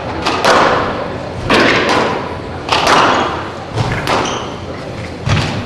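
Squash rally: a series of sharp echoing cracks as the ball is struck by racquets and hits the walls, about one a second, with a couple of heavier low thuds toward the end.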